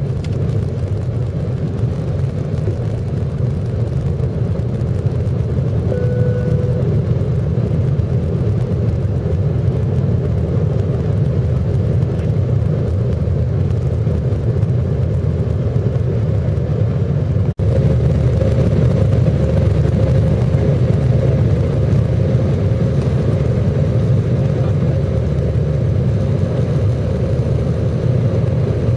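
Airliner cabin noise: a steady low rumble of the jet engines and airframe heard from inside the passenger cabin. A brief tone sounds about six seconds in. After a sudden break about two-thirds of the way in, a steady engine whine rises above the rumble.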